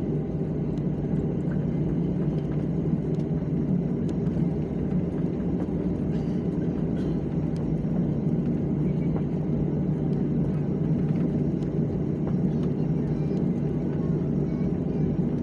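Steady low rumble of an airliner's jet engines and air heard inside the passenger cabin during taxi, with a constant hum and a few faint rattles.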